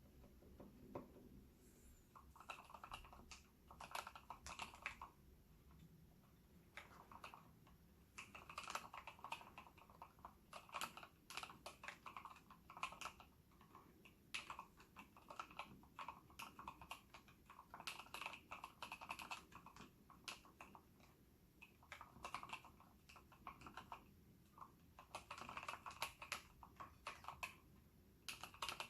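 Quiet typing on a mechanical keyboard in an acrylic case, with fully lubed Gateron Yellow linear switches oiled with Krytox 107. Runs of rapid keystrokes are broken by a few short pauses.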